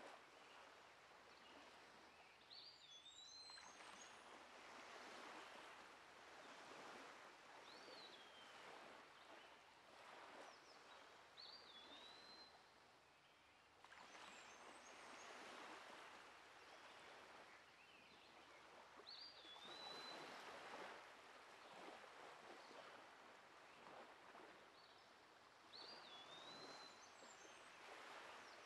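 Faint outdoor ambience: a bird repeating a short whistled phrase every few seconds, with a few thin high chirps, over a soft rushing noise that swells and fades.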